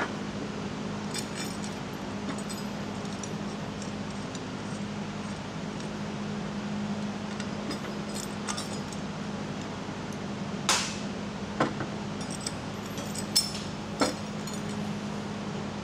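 Steel lever bracket, bolts and washers being handled and set down on a workbench during disassembly: scattered metal clinks and knocks, four sharper ones in the last third, over a steady low hum.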